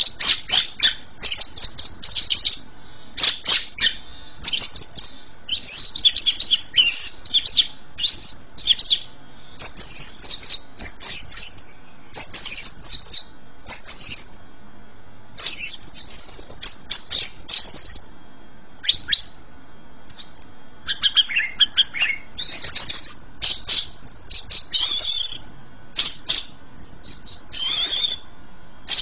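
Greater green leafbird (cucak ijo) in full song: phrase after phrase of rapid, high, varied chirps and warbles with short pauses between. A run of lower notes comes about two-thirds of the way through.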